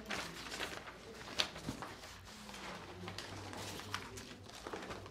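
Faint rustling of paper and light clicks as papers are handled and written on at a counter, over a low hum of room tone.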